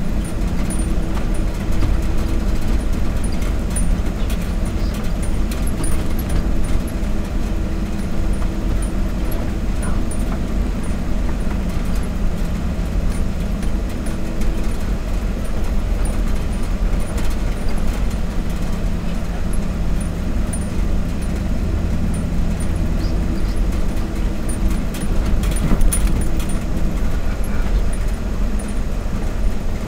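Vehicle engine and tyre noise while driving slowly over a rough, snowy dirt road: a steady low rumble with an engine hum that comes and goes, and occasional knocks and rattles from bumps.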